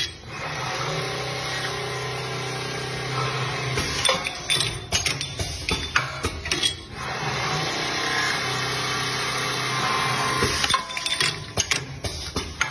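CNC machine tool running with a steady hum, with bursts of sharp metallic clicks and clatter, broken by a few abrupt cuts.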